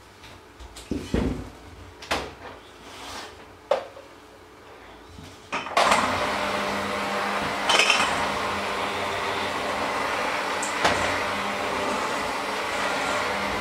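A few scattered knocks and clicks, then about six seconds in a handheld electric mixer fitted with dough hooks switches on suddenly. It runs steadily with a constant motor hum as it kneads dough in a steel bowl, with a couple of brief louder scrapes against the bowl.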